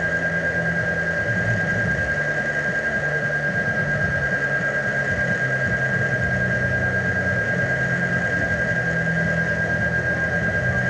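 Steady droning hum with a constant high-pitched whine held over it, unchanging throughout.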